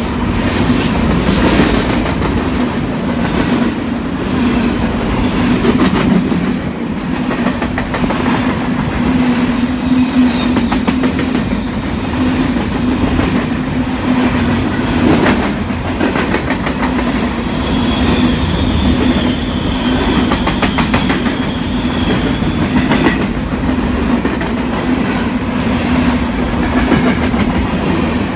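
Freight train of covered hopper cars rolling past at close range: a steady rolling rumble with the clickety-clack of steel wheels over rail joints.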